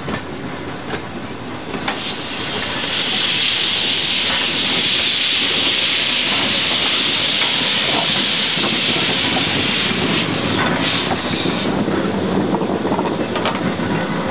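Steam locomotive letting off steam: a loud hiss builds about three seconds in, holds for several seconds and fades after about ten seconds. It gives way to the lower rumble of the locomotive on the rails.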